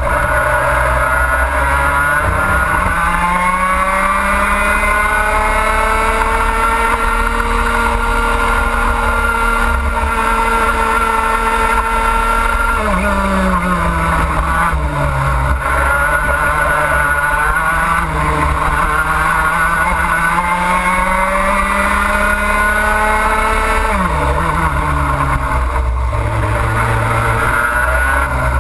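Racing kart's two-stroke engine at full throttle through a lap, its note climbing steadily as the kart accelerates along a straight. It drops quickly as the kart slows for a corner about 13 seconds in and again about 24 seconds in, then climbs again.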